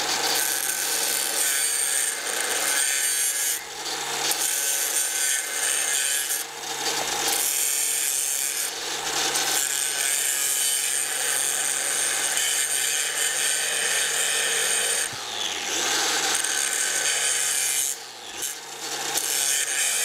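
Angle grinder with a 1/8-inch grinding wheel grinding the bevel edges of a steel plate: the wheel rasps against the metal over a steady motor hum. This is the clean-up of the groove left by cutting out a root with incomplete penetration, before it is rewelded. The grinder briefly drops in pitch a few times near the end.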